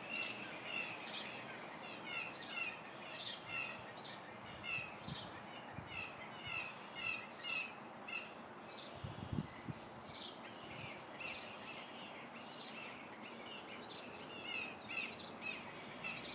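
Blue jays scolding: short harsh calls repeated one or two a second, thinning out past the middle, a couple of jays throwing a fit over chickens below. A brief low bump about nine seconds in.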